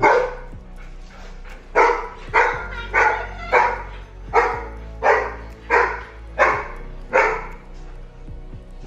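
A small dog barking: one bark, then a run of nine sharp barks at about one and a half a second.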